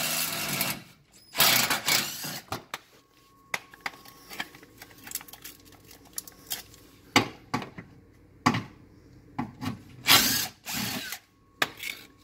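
DeWalt cordless impact driver spinning in short bursts as it backs out the rusty Phillips screws of a car's plastic splash guard, with small clicks and rattles between the bursts. There is a longer run at the start, then several brief ones, and a loud run about ten seconds in.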